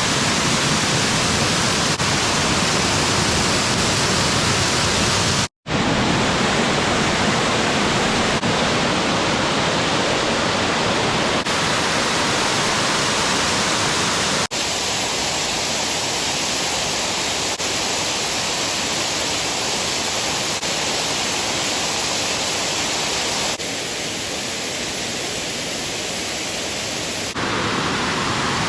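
Waterfall rushing: a loud, steady hiss of falling water. It drops out for an instant about five seconds in and changes tone abruptly a few times, as at cuts between shots.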